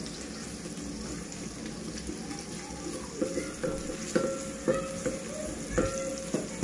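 Sliced onions frying in oil in a metal pot, a steady sizzle. From about three seconds in, a wooden spatula stirring them knocks against the pot six or seven times, each knock ringing briefly.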